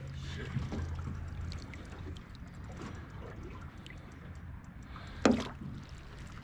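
Water sloshing and trickling around a landing net held in the water beside a boat hull, with small splashes and drips. A low steady hum fades out after about two seconds, and a short sharp sound comes about five seconds in.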